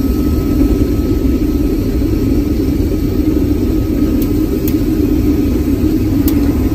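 Combine harvester running steadily under load while cutting beans: a loud, even, low machine rumble.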